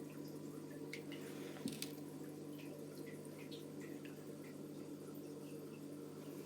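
Aquarium water trickling and dripping over a steady low hum, with scattered small plinks and one sharp click a little under two seconds in.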